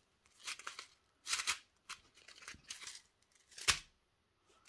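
Small clear plastic bag of square diamond-painting drills crinkling as it is handled, with the drills shifting inside: about five short rustles, the loudest near the end.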